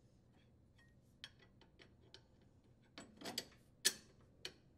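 Scattered light metallic clicks and taps of steel bolts and parts being handled as steering link mounting bolts are fitted through a riding mower's steering gear sector. A few louder clicks come between about three and four and a half seconds in, the loudest just before four seconds.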